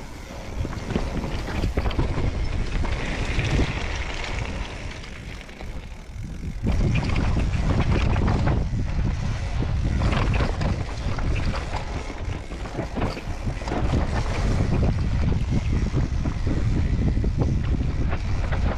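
Mountain bike descending a rough trail: wind buffets the on-board microphone over tyre rumble and frequent clatters from the bike on rough ground, louder from about seven seconds in.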